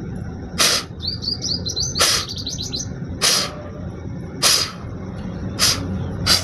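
Sharp, forceful blasts of breath out through the nose, about six of them roughly a second apart, blowing the remaining salt water out of the nostrils after a jal neti nasal rinse. Small birds chirp in the background, most in the first half.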